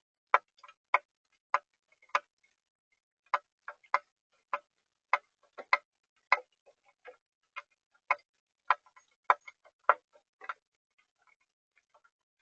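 Water dripping in a steady rhythm of sharp taps, about three every two seconds, with a short break in the rhythm twice.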